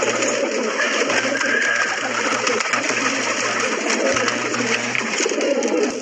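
A flock of fancy pigeons cooing all together, many overlapping coos and gurgles forming a steady, dense chorus.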